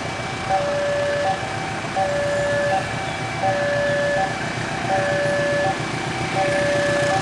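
Level crossing warning alarm sounding a loud electronic two-tone chime, a low and a high note alternating about once every one and a half seconds. Under it, a diesel locomotive hauling its train runs with a low rumble.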